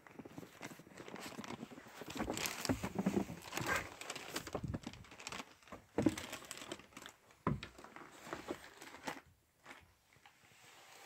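Footsteps and irregular knocks on wooden floorboards with rustling handling noise as someone walks into a small wooden cabin. Two sharper knocks stand out about 6 and 7.5 seconds in, and it quietens near the end.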